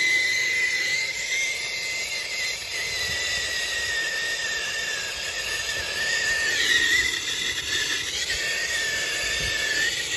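Hand brazing torch flame burning steadily with a hiss and a thin steady whistle, heating a copper refrigerant line joint at the service valve for silver brazing.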